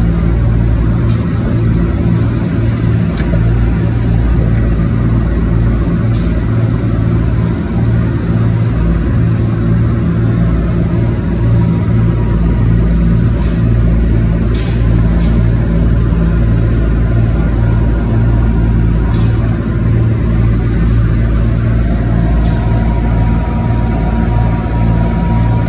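Boat engine running steadily under way, a loud low drone.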